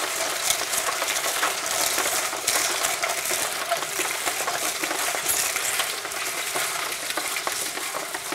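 Peanuts being shelled in a hand-cranked Universal Nut Sheller: the pods crack and rattle between the concrete rotor and stator as the crank is turned, a steady dense crackle of many small clicks, while shelled nuts and hulls pour out into a bucket.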